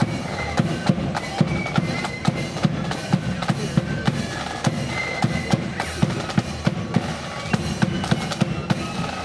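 Marching flute band playing a march: bass drum and snare drums beating a steady, even rhythm, with faint high flute notes above.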